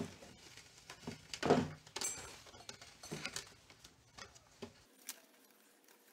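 Hands handling a white plastic scooter top case and its wiring: scattered light clicks, knocks and rustles, the loudest a short scrape about a second and a half in.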